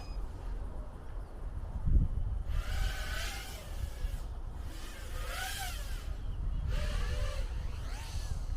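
FPV freestyle quadcopter's electric motors whining in three throttle bursts, each rising and falling in pitch. There is a single low thump about two seconds in, over a steady low rumble.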